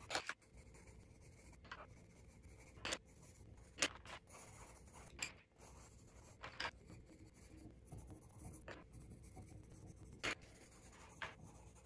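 Faint scratching of a coloured pencil shading on sketchbook paper, broken by several light taps as pencils are picked up and swapped.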